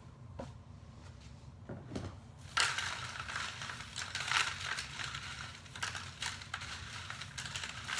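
Crinkling and crunching of rummaged trash, starting about two and a half seconds in and going on with many small clicks and crackles.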